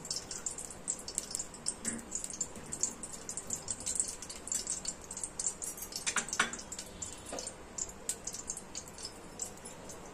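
Ghee heating in the base of an aluminium pressure cooker, sizzling with a steady stream of fine crackles.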